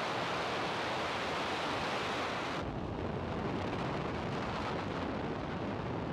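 Falcon 9's nine Merlin 1D first-stage engines firing just after liftoff, heard from the launch pad as a steady noisy rumble. About two and a half seconds in the sound turns duller and deeper, the hiss falling away and the low rumble growing stronger.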